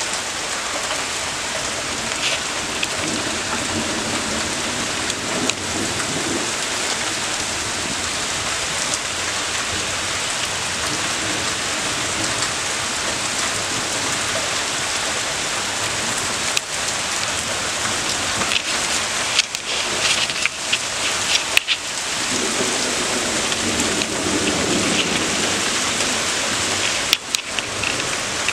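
Heavy rain falling steadily in a severe thunderstorm, with low rumbles of thunder a few seconds in and again near the end.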